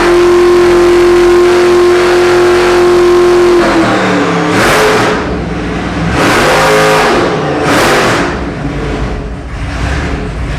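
Roots-supercharged 572 cubic inch big-block Chevy V8 on an engine dyno, running loud and steady at about 5,000 rpm for over three seconds. It then comes off throttle and is blipped three times as it falls toward low revs.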